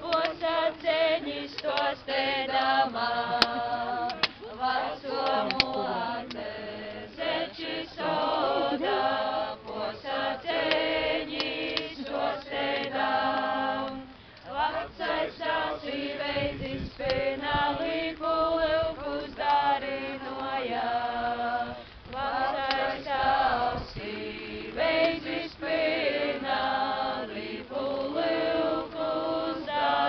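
A group of women singing a Latvian folk song together in a continuous chant-like melody.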